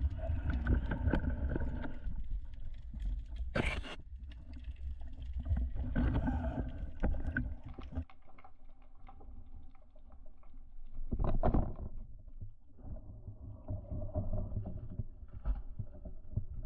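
Underwater noise heard through the camera as a diver swims with a speargun: a steady low rumble of water and body movement with scattered small knocks, one sharp knock about four seconds in and a louder rush of water noise around eleven seconds in.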